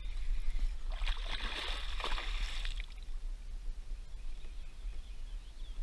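Kayak paddle working the water: a splashing, trickling swish begins about a second in and lasts around two seconds, over a low steady rumble.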